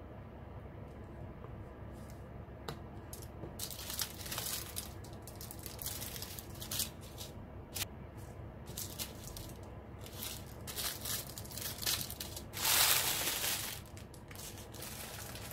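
Small plastic bags of diamond painting drills crinkling and rustling as they are picked up and sorted on a table, with small clicks and taps between. The loudest rustle comes near the end.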